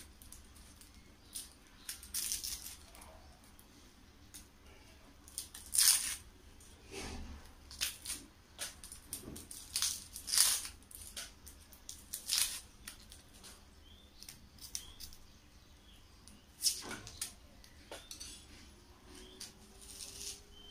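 Small kitchen knife tapping and scraping on a plastic chopping board while an onion is peeled and trimmed: irregular sharp taps a second or two apart over a quiet background.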